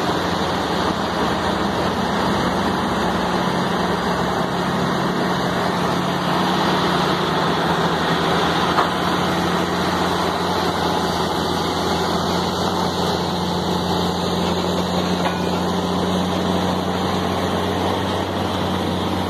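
Heavy-haul ballast tractor's diesel engine running steadily under heavy load, a constant deep hum under dense engine noise, hauling a multi-axle trailer with a transformer.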